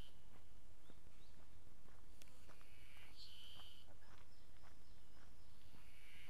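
Ezo spring cicadas (Terpnosia nigricosta) singing. A call phrase starts about two and a half seconds in, rises into a steady high buzz for about a second, and another phrase begins near the end. Faint scattered clicks fall between the phrases.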